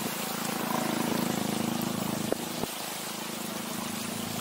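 A small engine running steadily with a low, fast, even putter, and two sharp clicks about halfway through.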